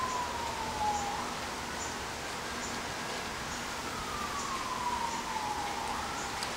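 Emergency-vehicle siren wailing, its pitch sliding slowly down and then jumping back up, two sweeps in all. A steady hiss runs underneath.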